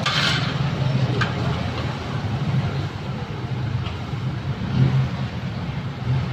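Small four-stroke engine of a Kawasaki backpack power sprayer running steadily, with a brief surge about five seconds in.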